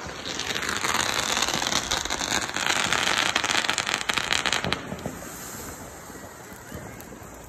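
Fireworks crackling, a dense rapid string of small pops, cutting off sharply about five seconds in. After it comes a quieter steady hiss from a ground fountain firework spraying sparks.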